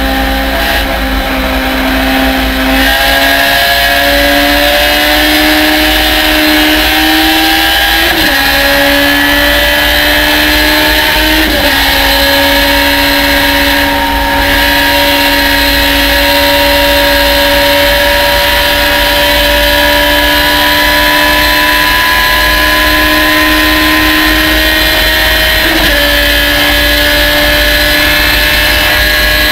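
Race car engine pulling hard under full throttle, heard from inside the open cockpit. Its pitch climbs slowly and drops sharply at three upshifts, about 8, 11 and 26 seconds in, over steady wind rush.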